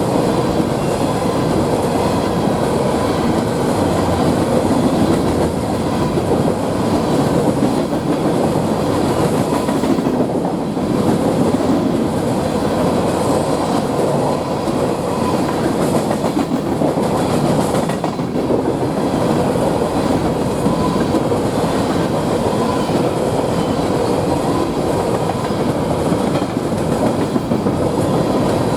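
Freight train cars rolling past at a steady pace, steel wheels running on the rails with a continuous loud rumble.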